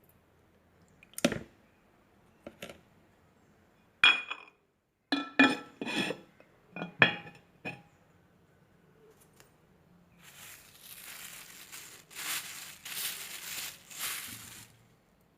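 A string of sharp clinks and knocks of hard objects, some ringing briefly, followed near the end by a few seconds of rustling noise.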